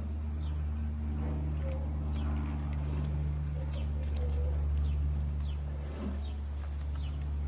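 A steady low engine-like drone, with brief high chirping bird calls over it.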